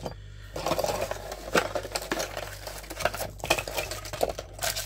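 Hard plastic action-camera mounts and accessories clicking and clattering against each other and the table as they are picked up and set down, in an irregular run of small knocks.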